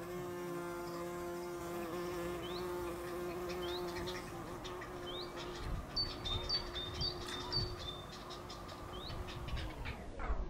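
Steady buzzing of an insect in flight, held at one pitch and dropping away about ten seconds in. Short high rising chirps sound every second or so over it.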